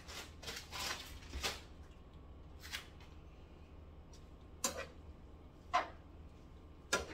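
A wooden spatula stirring shredded cabbage and carrots in a skillet: short scrapes and clatters, several close together in the first second and a half, then single ones spaced a second or so apart.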